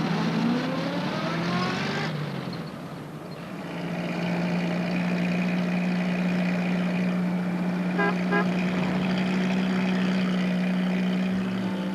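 Small van engine revving up with a rising pitch, then running at a steady drone as it drives off. Two short horn toots about eight seconds in.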